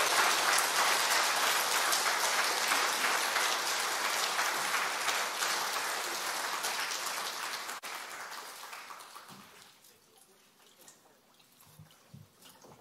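Congregation applauding, loud at first, then thinning out and dying away about ten seconds in. Near the end, a few soft low thumps as the microphone on its stand is handled.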